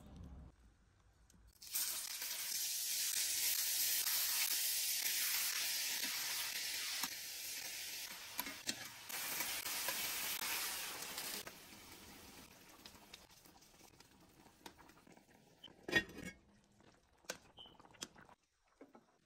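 Beef rolls stuffed with jalapeño and cheese sizzling as they brown in hot oil in a frying pan: a loud, steady sizzle that starts about two seconds in and drops away after about ten seconds. After that it is much quieter, with scattered light clicks and one sharp knock.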